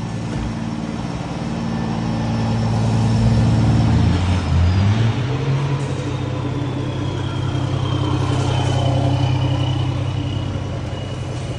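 Scania truck's diesel engine running through its aftermarket exhaust with the diffuser open, growing louder as it pulls away. The pitch breaks and drops about four and a half seconds in, like a gear change, then the engine pulls again and eases off near the end.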